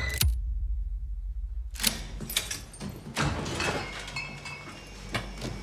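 Movie-trailer sound effects: a sharp hit, then a low rumble on its own. From about two seconds in, a run of sharp clinking hits and crashes follows, like breaking glass.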